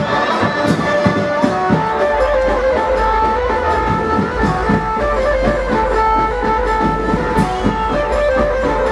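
Amplified procession band music: a plucked, guitar-like melody of held notes over a steady drum beat, with a low drone coming in about two seconds in.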